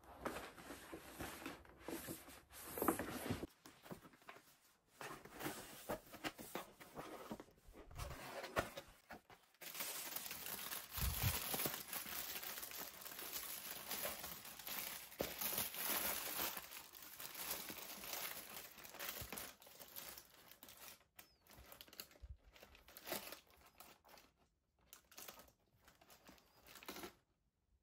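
Tissue paper crinkling and rustling in uneven bursts with short pauses as a pair of sneakers is unwrapped in a cardboard shoe box. A paper shopping bag rustles near the start.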